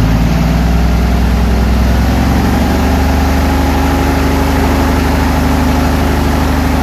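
ULPower UL520iS six-cylinder aircraft engine and its pusher propeller running on a ground run, throttled up from under 1,000 to about 1,500 rpm. The pitch rises over the first few seconds, then holds steady.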